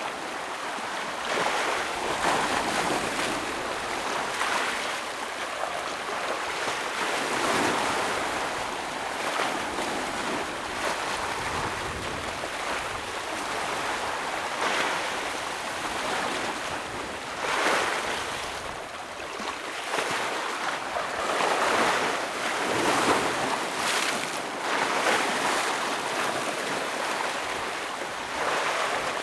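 Ocean waves breaking against rocks on the shore, a continuous rushing wash that swells with each wave every few seconds.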